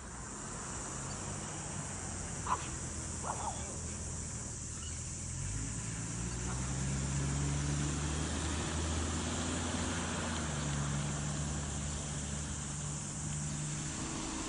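Insects buzzing steadily in a high, even hiss. From about five seconds in, a low hum joins it and steps up and down in pitch, with two short chirps a few seconds in.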